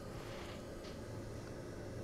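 Quiet room background: a low steady hum and faint hiss, with no distinct sound event.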